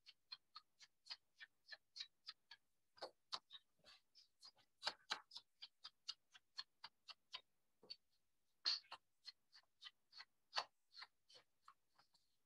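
Faint, quick taps, about three or four a second and uneven in strength: an ink blending tool with a domed foam pad being dabbed onto cardstock mats to ink them.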